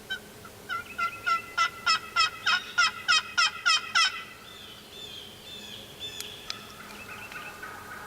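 A loud run of about a dozen turkey yelps over roughly three seconds, each note breaking from high to low, followed by faint small-bird chirps.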